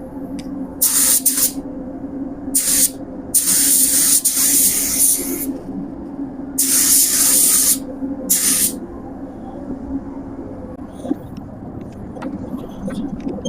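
Pneumatic paint spray gun applying primer surfacer in about five separate passes, each a burst of hissing atomised spray lasting from half a second to about two seconds, over a steady low hum.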